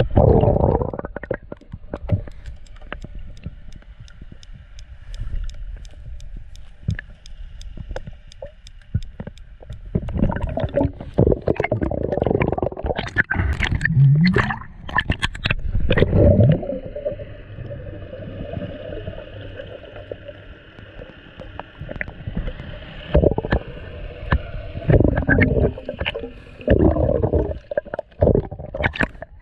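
Muffled underwater sound through a mask-mounted camera: rushing and gurgling water in several long bursts, with wavering low moaning tones in them, and faint sharp clicks in the quieter stretch early on.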